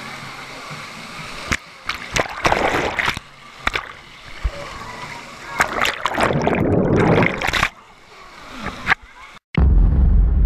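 Water splashing and gushing in loud irregular bursts, heard close up from water level. About nine and a half seconds in, after a brief dropout, a deep low boom swells and then fades.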